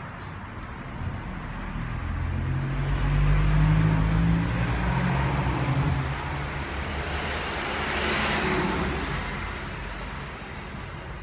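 Street traffic: a motor vehicle's engine rumble builds to a peak about four seconds in and fades, followed by a second, hissier swell of passing traffic about eight seconds in.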